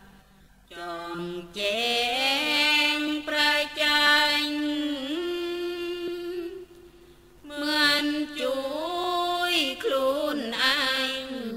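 A solo voice chanting a Thai Buddhist dhamma recitation in long, drawn-out melodic phrases, with held notes and sliding pitch. There are two phrases, with a brief pause about seven seconds in.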